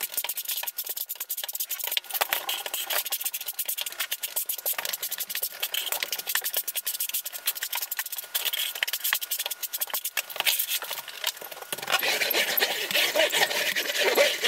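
Fast-forwarded steel trowel scraping and combing thinset mortar across an uncoupling mat: a dense, rapid run of scratches and clicks. About three-quarters of the way through it turns into a fuller, busier rush of sound.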